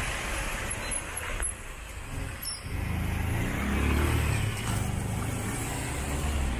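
Street traffic on a wet road: tyre hiss, then a motor vehicle's engine rumbling low and close from about three seconds in.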